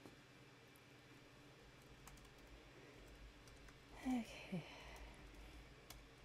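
Faint, scattered keystrokes on a computer keyboard as shell commands are typed. About four seconds in there is a brief low vocal sound, falling in pitch, with a shorter one just after it.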